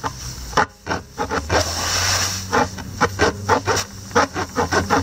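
Spiral rasp from a tubeless tyre-plug kit being worked in and out of a puncture in a car tyre's tread: a quick run of short rubbing strokes, about four or five a second from about halfway through. A steady low hum sits underneath from about a second and a half in.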